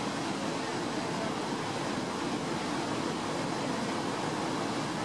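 Steady rush of a waterfall's falling water: a constant, even hiss with no breaks.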